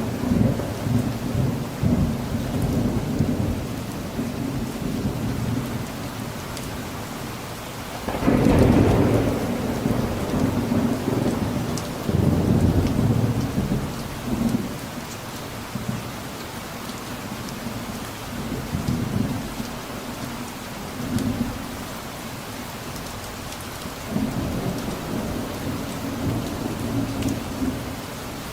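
Steady rain with distant rolling thunder. A rumble fades over the first few seconds, a louder thunderclap comes about eight seconds in and rolls on for several seconds, and fainter rumbles follow near the end.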